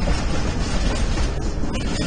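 Train passing on the tracks: a steady, even rumble with rail noise, with no clear wheel-beat.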